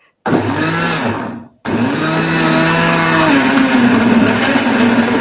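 Countertop blender runs for about a second, cuts off, then starts again and keeps running, its motor note dropping a little about three seconds in. It is blending a thick smoothie of raw komatsuna, carrot and banana with milk and yogurt.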